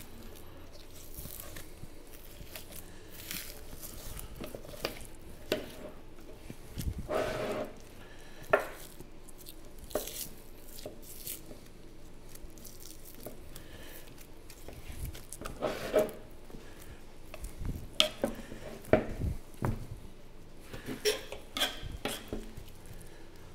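Boning knife scraping and cutting along lamb rib bones, Frenching a rack of lamb on a cutting board: short, irregular scrapes and light taps of the blade, with pauses between strokes.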